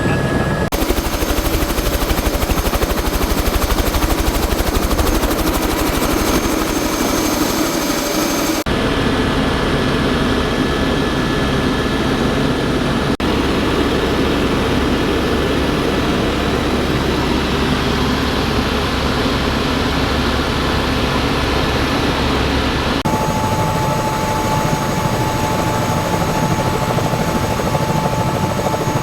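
Helicopter noise: a loud, steady rotor and engine drone with faint steady whines on top. It changes tone abruptly several times.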